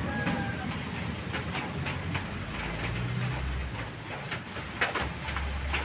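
Steady low rumble under an even hiss, with a few light clicks.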